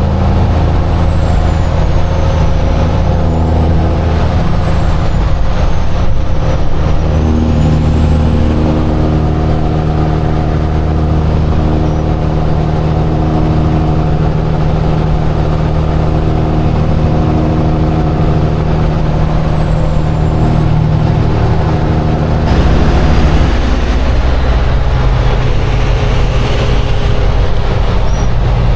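Semi truck's diesel engine running steadily at road speed under a constant wash of tyre and road noise. About two-thirds of the way through, the engine note drops lower and gets slightly louder.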